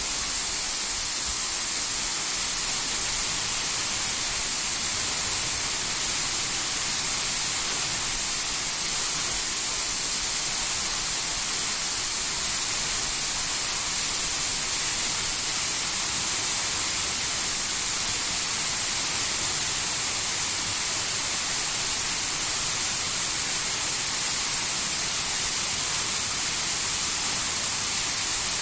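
Waterfall rushing: falling water making a steady, even hiss.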